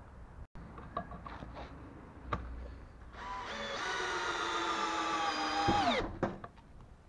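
Makita DHP481 18V brushless cordless driver-drill driving a wood screw into a timber beam. After a few clicks as the bit is handled, the motor whines for about three seconds, its pitch sagging slowly under load, then winds down quickly when the trigger is let go.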